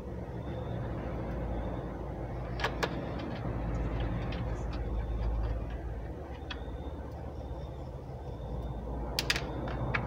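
Screwdriver and screws clicking and tapping against a laptop's plastic bottom case, with two pairs of sharp clicks, one pair a few seconds in and one near the end, over a steady low background hum.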